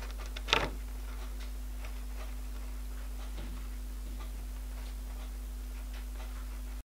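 Steady low electrical hum of workshop room tone with a few faint light ticks and one sharper tap about half a second in; the sound cuts out just before the end.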